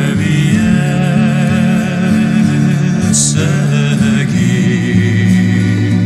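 Background music: a sung melody with vibrato over steady low held chords.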